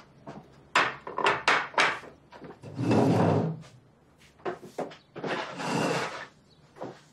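A few sharp knocks as plates are set down on a tabletop, then two longer scrapes, the first the louder, as a chair is pulled out and sat in.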